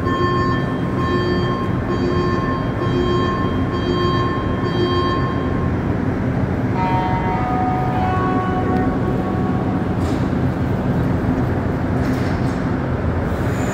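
Montreal Metro MR-73 train at the station, a steady loud rumble. Over it, a set of steady tones pulses on and off about once a second for the first five seconds, and a different set of tones sounds briefly a few seconds later.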